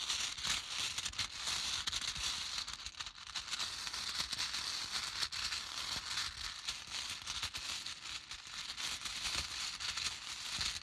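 Small letter tiles being stirred and rattled by hand, many tiles clicking against each other in a dense, continuous clatter.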